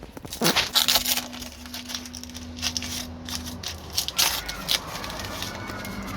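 Handling noises: a series of sharp knocks, clicks and crackles, densest about a second in and again around four seconds in, over a steady low hum that stops about three and a half seconds in.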